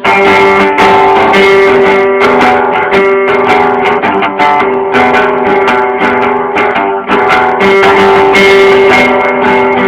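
Guitar strummed in a steady rhythm, an instrumental passage of a song, with a held note sounding underneath the chords.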